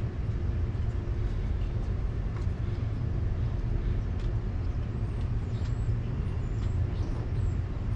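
A vehicle engine idling steadily: a low, even rumble with a faint steady hum.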